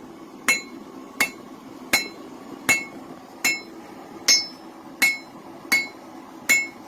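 Hand hammer striking a hot railroad spike on an anvil in knife forging: nine evenly spaced blows, about one every three-quarters of a second, each with a bright metallic ring.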